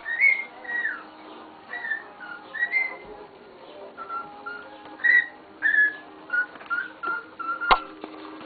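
Cockatiel whistling a string of short notes, some gliding up or down, with one sharp click near the end.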